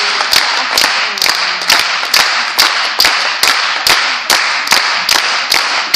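Crowd clapping in time, about two claps a second, over a steady haze of applause.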